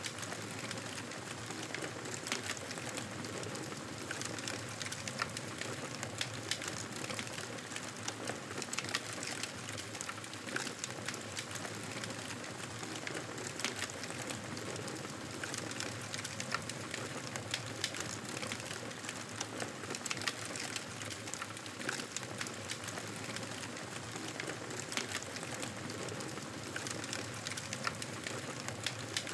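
Campfire burning: a steady hiss dotted with irregular crackles and snaps, several a second.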